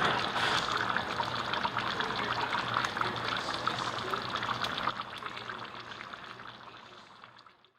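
Water pouring and trickling steadily, with a fine crackle, fading out over the last few seconds.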